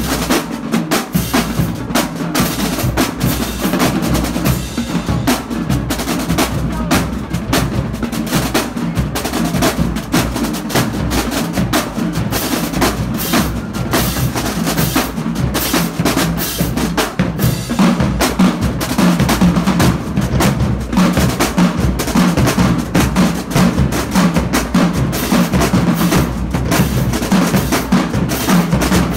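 Marching drumline playing: snare drums striking and rolling rapidly over the beat of bass drums, loud and without a break.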